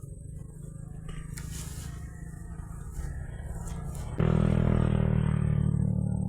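An engine running steadily, then abruptly much louder about four seconds in.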